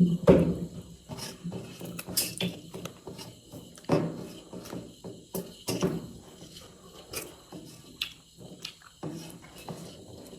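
Close-up eating sounds: chewing and mouth smacks with many irregular sharp clicks.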